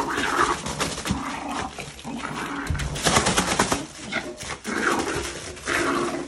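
Yorkshire terrier growling while it bites and tugs at a plastic mailer package, the plastic crinkling and rustling, most densely about halfway through.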